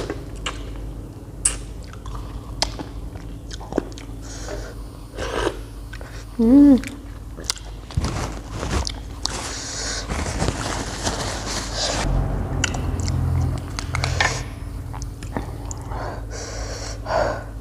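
Close-miked chewing and biting of tam sua with pickled shrimp and pickled field crab: wet mouth sounds and scattered crunches and clicks. A short pitched voice sound about six and a half seconds in is the loudest moment.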